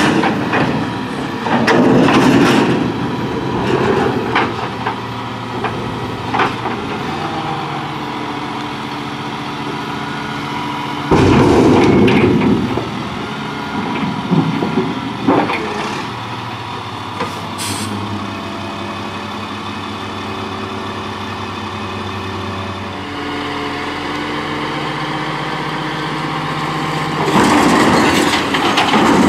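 1999 Crane Carrier garbage truck's diesel engine running steadily while its Impac CSL side-loading arm lifts and dumps, with three bouts of loud clattering and banging as refuse is tipped into the body. A brief air hiss partway through.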